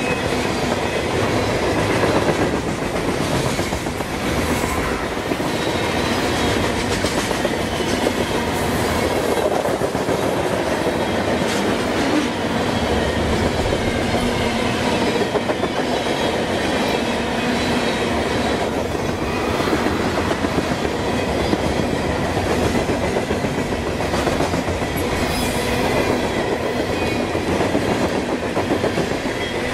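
Freight train of covered hopper and tank cars rolling past at close range: a steady rumble of steel wheels on rail, with repeated clacks from the wheels.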